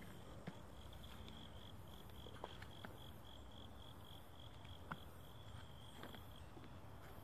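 An insect chirping in a steady, rapid high-pitched pulse, about five pulses a second, stopping shortly before the end. A few scattered faint clicks sound over it.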